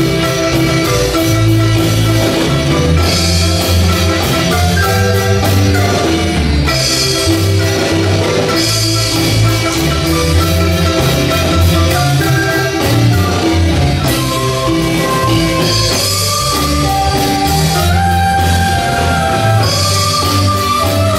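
Marimba orquesta dance music: a marimba melody over bass and drums, with a steady beat that runs without a break.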